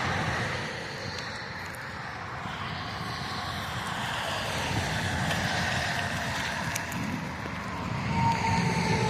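Steady motor-vehicle noise, engine and road sound, with a thin high whine joining about eight seconds in and sliding slightly lower.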